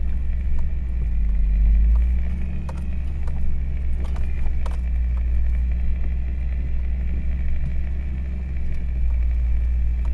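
Hummer H3 driving slowly over an off-road trail, heard from inside the cabin: a steady low engine and drivetrain rumble with scattered small knocks and rattles, and a faint steady high whine.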